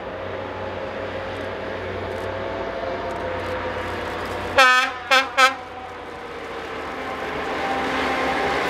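Diesel locomotive hauling a passenger train draws closer, its engine growing louder. A little past halfway it sounds its horn three times: one longer blast followed by two short ones.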